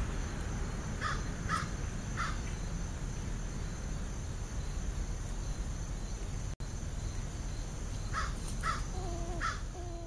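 A crow cawing: three short caws about a second in and three more near the end, over a steady low rumble.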